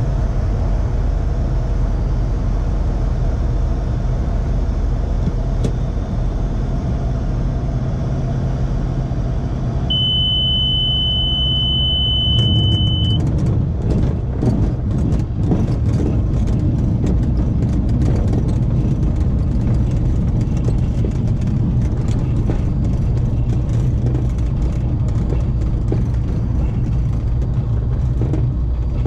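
Light aircraft cockpit noise with the engine at idle: a steady low drone during the glide and flare. A steady high tone sounds for about three seconds near the middle. From about twelve seconds in, uneven rumbling and rattling come in as the wheels roll over the bumpy grass runway.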